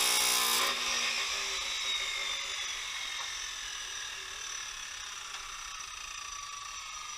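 Grinder cutting into metal for a moment while deburring a steel plate, then released. It spins down with a whine that falls slowly in pitch.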